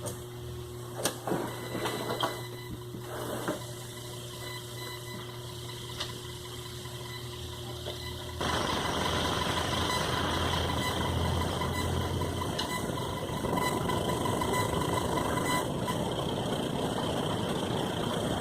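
Sewing machine electric motor humming steadily, with a few light clicks, then about eight seconds in it steps up to a louder, steady whirring run.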